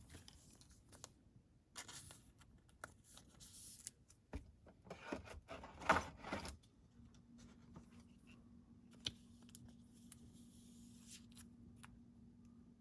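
Faint rustling and clicking of trading cards and their foil pack wrappers being handled, in short scattered bursts, with a faint steady hum coming in about halfway through.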